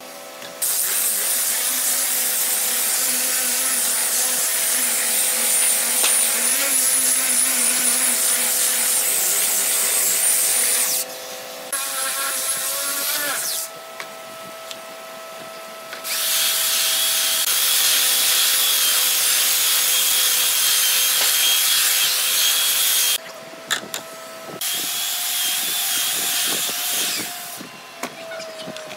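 Electric power sanders, a belt sander and an angle grinder fitted with a sanding disc, running against red hardwood boards: a steady hiss of abrasive on wood over a motor whine. The sound breaks off abruptly several times and starts again.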